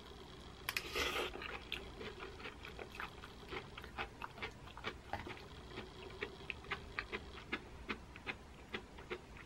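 Close-miked chewing of a mouthful of zucchini-noodle pesto pasta: a short louder bite as the forkful goes in about a second in, then a run of small wet mouth clicks, about two or three a second.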